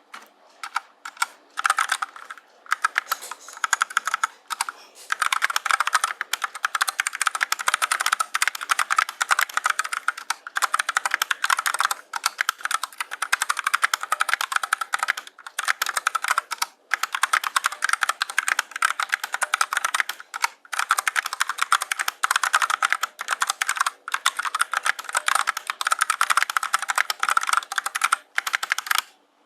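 Fast, continuous typing on a Koodo Arcadia 68% mechanical keyboard with Gateron switches and ABS double-shot keycaps: rapid keystroke clacks that stop briefly a few times.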